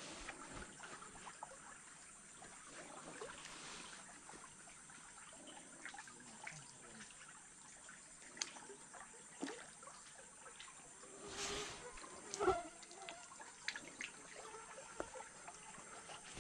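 Faint trickling and dripping of water around a small boat, with scattered light clicks and a few sharper knocks in the second half.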